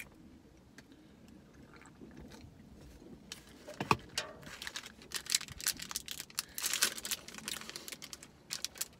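Plastic wrapper of a protein bar being torn open and crinkled: quiet at first, then a dense run of crackles from about three seconds in, with a single louder knock about four seconds in.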